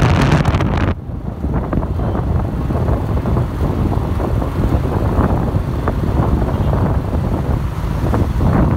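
Wind buffeting the microphone of a passenger riding on a moving motor scooter, with the scooter's engine and road noise underneath. The rush is loudest and brightest until about one second in, then settles slightly lower.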